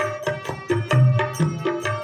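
Instrumental stretch of a devotional bhajan between sung verses: a repeating hand-drum rhythm of sharp strokes with ringing pitched notes and deep low beats.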